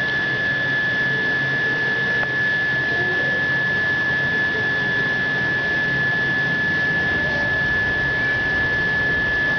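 Steady background hiss with a constant high-pitched whine and a low hum underneath, unchanging throughout.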